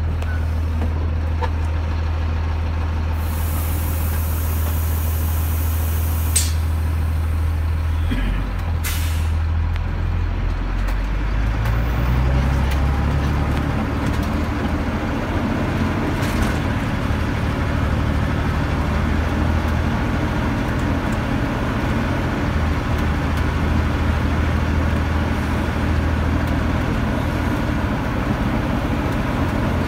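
A bus engine heard from inside the cabin, running with a steady low hum. About three seconds in there is a hiss lasting a few seconds. Around 12 seconds in the engine pitch rises as it speeds up, then it runs steadily again.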